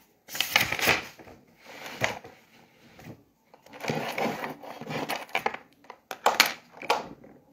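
Handling noise from a phone's microphone: irregular rustling and knocking bursts with a few sharp clicks, as the phone is adjusted.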